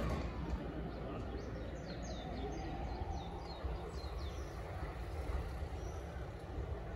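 Electric commuter train approaching a station platform from a distance: a steady low rumble with a faint whine rising slightly in pitch. A few short bird chirps come between about one and a half and four seconds in.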